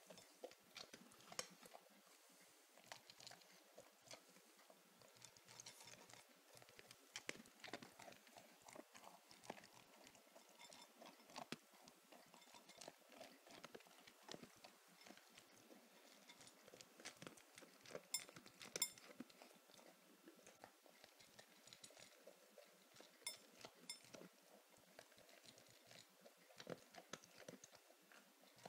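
Bouvier des Flandres eating, with a steady run of irregular chewing and crunching noises and a few sharper clicks.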